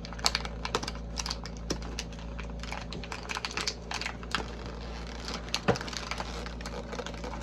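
Hands opening plastic toy packaging: irregular small crinkles and plastic clicks, several a second, with a few louder snaps.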